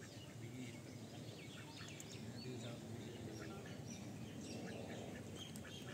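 Small birds chirping: many short, scattered high chirps over a steady outdoor background hum.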